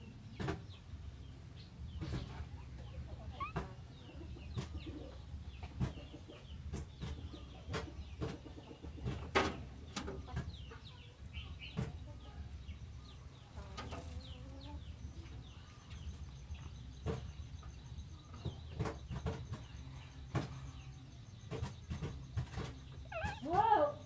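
Scattered short bird calls and clicks over a low steady hum, with one louder wavering call near the end.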